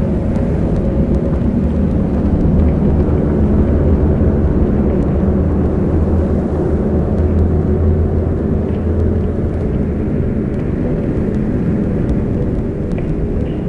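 Slowed, heavily reverbed ambient drone: a dense, steady wash of low noise with held low tones under it and faint scattered clicks above.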